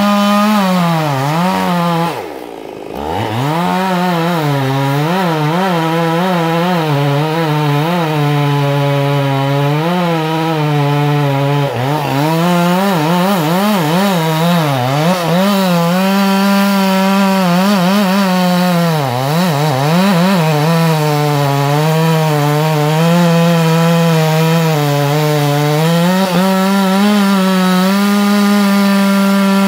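Two-stroke chainsaw running at high revs as it cuts into a tree, its engine note wavering as the chain meets the wood. About two seconds in the revs drop sharply for a moment, then climb straight back up.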